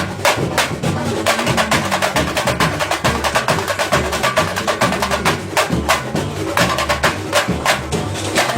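A live band playing percussion-heavy music: many drums and hand percussion strike a fast, steady groove over a moving bass line, with no singing.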